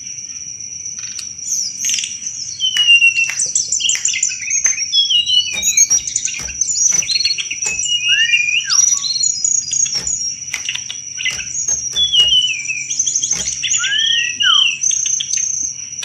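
A tledekan gunung singing continuously in a rapid, varied song of quick whistled glides and chirps, mixed with rattling trills and sharp clicking chatter (cetrekan). A steady, high-pitched drone runs under it.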